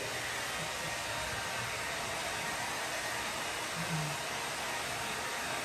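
Hand-held hair dryer blowing steadily, switched off near the end.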